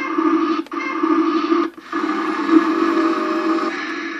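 Toy CAT excavator's small electric motor and plastic gearbox whirring as the boom and bucket move. It runs in three stretches, stopping briefly twice in the first two seconds and then running on steadily.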